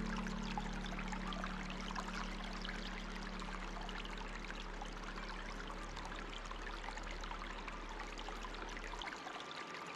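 Steady trickling, flowing water like a small stream, with a low held background tone fading out during the first part.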